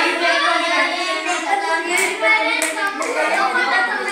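Young girls singing together, with a few sharp clicks about two to three seconds in.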